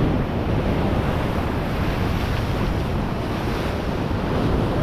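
Ocean swell surging and washing white over the rock ledge just below, with wind buffeting the microphone.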